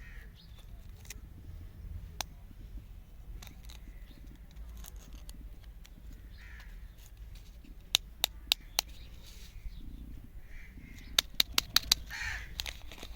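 A run of sharp clicks, four in about a second, then about six in quick succession a few seconds later, over a low rumble, with a few short calls in the background.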